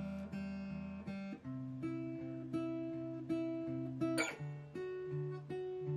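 Acoustic guitar fingerpicked in a steady thumb-then-finger pattern on two-note chord shapes with open strings ringing, moving to a new chord about a second and a half in and again about four seconds in. A short string squeak comes from the fretting hand sliding along the strings at the second change.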